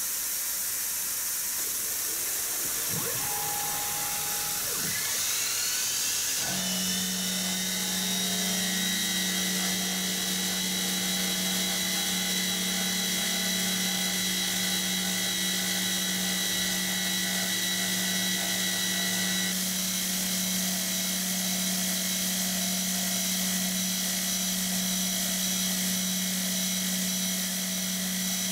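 Spindle of an Optimum BF20L Vario mill spinning up a 40 mm four-insert face mill with a rising whine about six seconds in, then running at a steady pitch for the facing pass on aluminum. A mist-coolant nozzle hisses underneath throughout.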